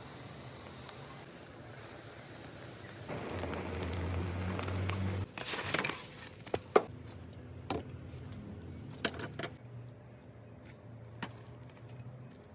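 Carp grilling over a charcoal mangal: a steady hiss for the first five seconds, with a low hum joining briefly midway. Then a string of sharp clicks and knocks follows, the loudest a little under seven seconds in.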